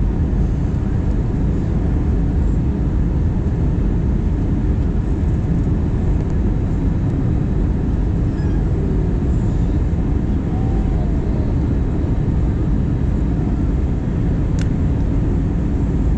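Steady rumble of an Airbus A320's engines and rushing air, heard inside the cabin at a window seat beside the wing during the descent. A single brief click sounds near the end.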